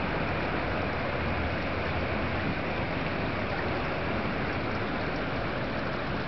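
Steady outdoor background noise, an even wash with nothing standing out and no change throughout.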